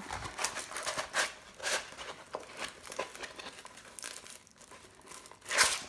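Plastic-coated diamond painting canvas and its clear protective film crinkling and rustling as it is rolled and flattened by hand, in irregular bursts with a louder crinkle near the end.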